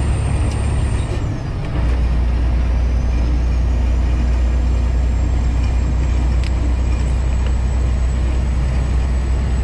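Semi truck's diesel engine droning inside the cab at highway speed, with road noise. About a second in, the engine sound dips briefly and then picks up again, and a faint high whine drops and slowly climbs back.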